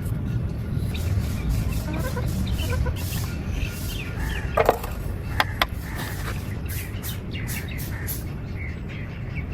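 Short bird calls, clucking like fowl, over a steady low rumble, with a few sharp clicks near the middle.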